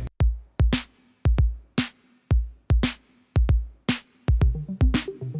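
Electronic background music with a steady drum-machine beat, deep kick thumps and sharp high hits about twice a second.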